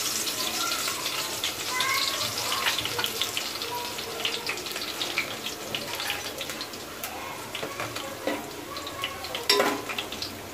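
Crushed garlic sizzling and crackling in hot oil, the sizzle slowly dying down. Near the end a metal ladle stirs it and knocks against the aluminium pot.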